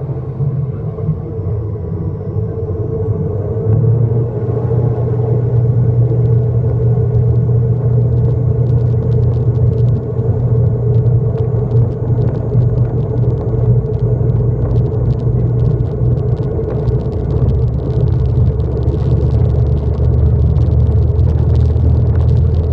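Twin Pratt & Whitney PW127 turboprop engines of an ATR 72-600 heard inside the passenger cabin: a steady low propeller drone that gets louder about four seconds in and again near the end as power comes up for the take-off roll. Faint light rattling ticks run through the second half.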